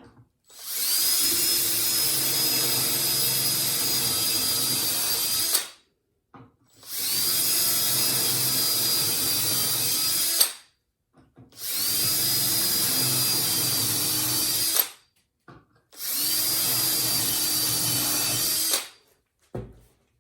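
Power drill boring shelf-pin holes in a melamine board through a drilling template. It runs in four bursts of three to five seconds each, with short pauses between, and gives a steady high whine.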